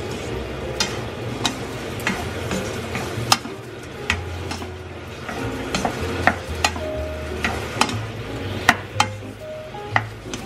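Fried chicken pieces sizzling gently in sauce in a non-stick wok on low heat while they are tossed. Wooden chopsticks and then a wooden spatula knock and scrape against the pan at irregular intervals.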